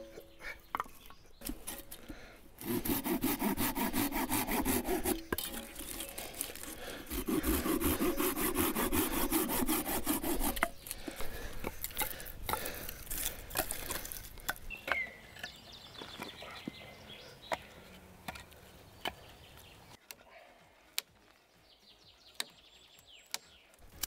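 A saw cutting wood in two bouts of a few seconds each, followed by scattered light clicks and knocks.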